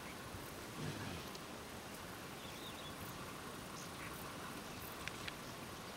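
Faint open-air background: a steady hiss with a brief low swell about a second in, a few short high chirps, and two sharp clicks near the end.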